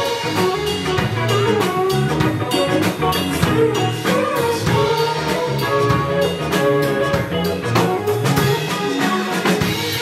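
Live band music without vocals: a Stratocaster-style electric guitar played over a drum kit, with keyboard.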